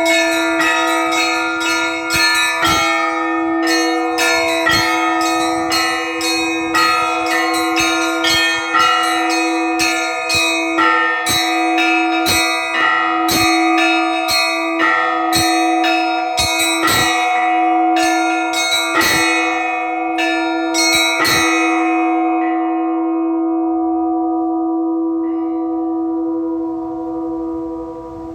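Orthodox church bells rung in a trezvon, the festive peal calling to the all-night vigil: many bells struck in a quick, rhythmic pattern over a steady ringing tone. About three-quarters of the way through the strikes stop and the bells ring on, fading away.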